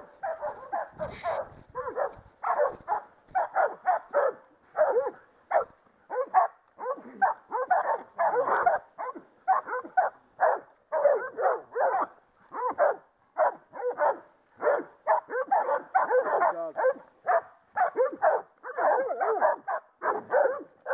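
Catahoula dogs barking steadily and repeatedly, about two barks a second, as they hold a wild boar at bay.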